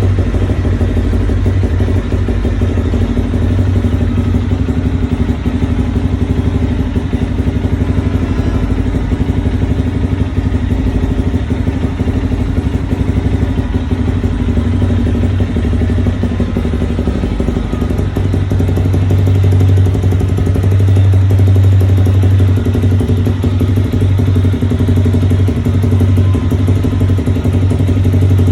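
Motorcycle running through a Taro GP V3 aftermarket exhaust at a steady engine speed, its low exhaust note getting louder for a few seconds about two-thirds of the way through.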